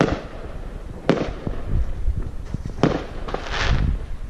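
Fireworks going off: sharp bangs at the start, about a second in and near three seconds, with a longer rushing burst shortly after three seconds.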